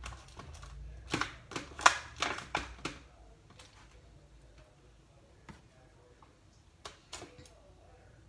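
Kitchen clatter from a pork steak being put into a baking pan: a quick run of about half a dozen sharp clicks and knocks between one and three seconds in, then a few fainter taps.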